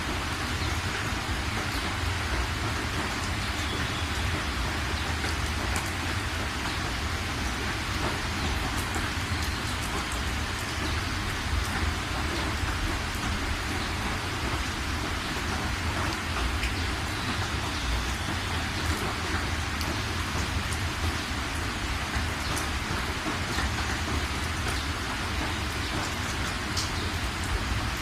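Steady rain falling on surfaces, an even hiss dotted with sharper drop ticks over a constant low rumble.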